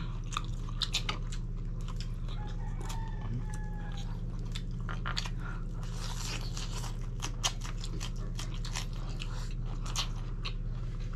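Close-up eating sounds: biting and chewing grilled chicken, with many small sharp crunches and wet mouth clicks scattered throughout. A steady low hum runs underneath.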